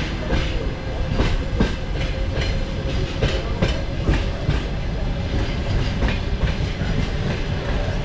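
Passenger train wheels clicking over rail joints in a loose clickety-clack, several clicks a second, over a steady low rumble, heard from inside the coach as it rolls through the station tracks.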